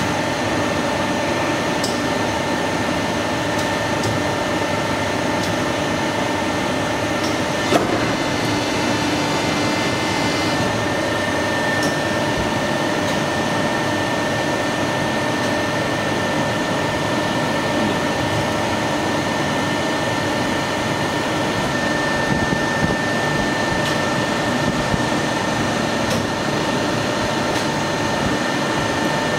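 Soft plastic lure injection machine running with a steady hum holding several constant tones. There is a single sharp metal clunk about eight seconds in, and a few light clicks and knocks as the mould plate is handled.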